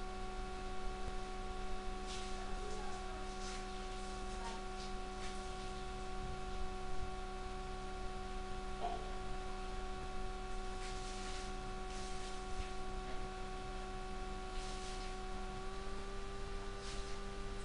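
A steady electrical hum with several overtones, stepping slightly up in pitch near the end.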